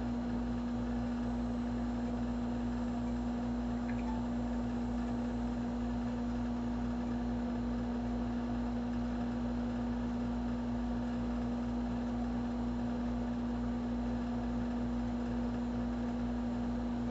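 A steady hum at one pitch over a constant hiss, with no change in level.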